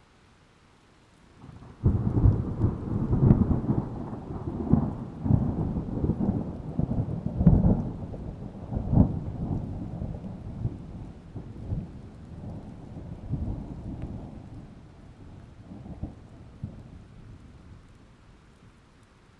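Thunder breaks about two seconds in and rumbles on in a series of rolling peals that slowly fade away near the end, over faint steady rain.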